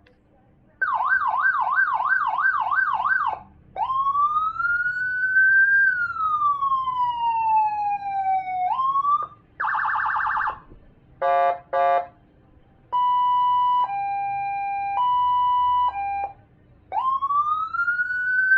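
Senken Landun electronic siren module played through a 15-watt Toa horn speaker, stepping through its tones with short pauses between: a fast yelp, a slow wail that rises and then falls, a short buzzing horn blast, two quick pulsed bursts, a two-tone hi-lo, and finally a rising wail that holds on a high note.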